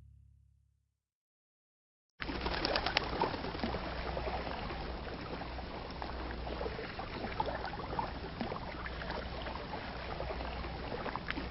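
The tail of a song fades out, and after a second or so of silence a soft, steady ambience of trickling water with bird coos comes in and holds.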